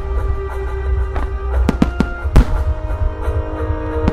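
Large aerial firework shells bursting: several sharp booms, the loudest about two and a half seconds in, over steady music.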